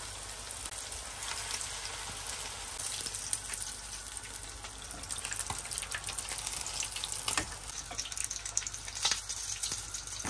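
Battered fish pieces deep-frying in hot oil in a frying pan: a steady sizzle full of crackles, with a few sharper clicks now and then as the fried pieces are lifted out with a slotted metal spoon.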